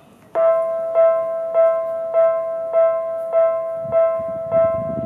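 Japanese railway level-crossing alarm starting about a third of a second in: an electronic bell ringing one tone over and over, a little under two strikes a second.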